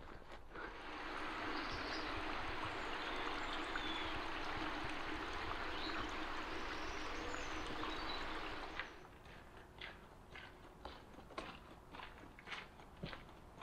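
Water running in a stream, a steady rushing that cuts off about nine seconds in; then footsteps on a dirt track.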